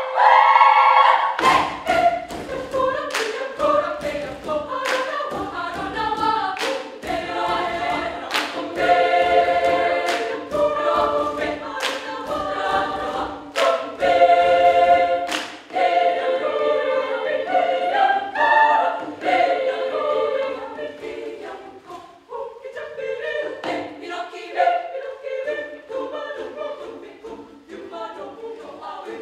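Children's choir singing a cappella in several parts, with sharp percussive hits marking the beat through the first half. About two-thirds of the way in the singing drops to a softer passage.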